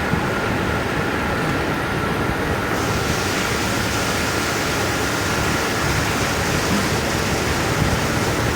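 Milk pouring from a bucket into a bulk milk chiller through a strainer, a steady rushing of liquid that grows brighter about three seconds in, over a steady machine hum with a faint whine.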